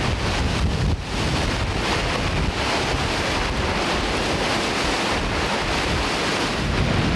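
Strong storm wind from the tornado blowing across the camera microphone: a loud, steady rush with heavy low buffeting.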